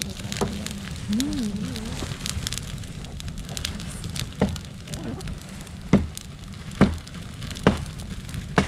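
Campfire of dry twigs and needles burning fast in a fire bowl: steady crackling over a low rumble of flames. From about halfway, a few sharper, louder pops come roughly once a second.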